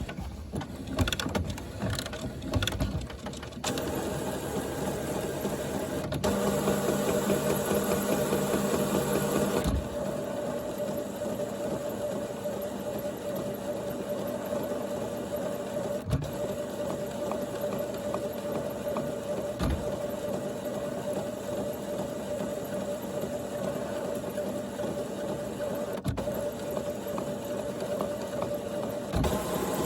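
HP Photosmart Plus printer's mechanism running with an abnormal noise: a few clicks in the first seconds, then a continuous mechanical whir with a steady hum, louder for a few seconds before easing off, and a sharp click now and then.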